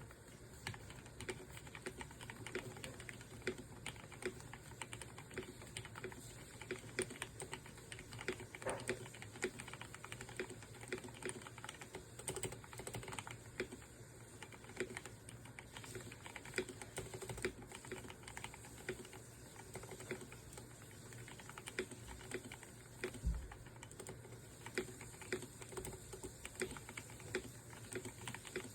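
Typing on an E-Yooso K630 mechanical keyboard fitted with lubed Outemu Red linear switches: a continuous, uneven stream of keystrokes.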